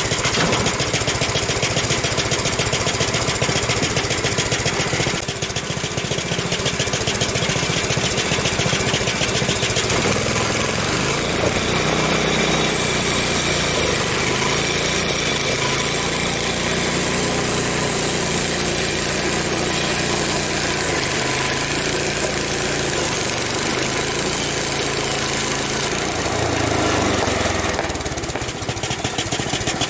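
Gasoline engine of a Frontier OS23 portable band sawmill running at speed while the blade cuts through a log, likely ash. The engine pitch sags and recovers several times as the cut loads it.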